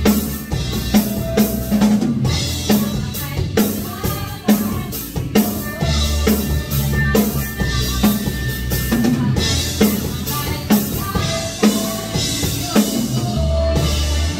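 Live band playing a slow praise song: a drum kit keeps a steady, slow beat with bass drum and snare, under bass, keyboard and electric guitar.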